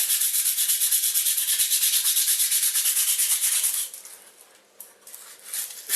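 Used medium-grit emery paper rubbed quickly back and forth by hand over a copper-clad printed circuit board, scouring the top layer of dirt off the copper before etching. The rubbing stops about four seconds in and starts again briefly near the end.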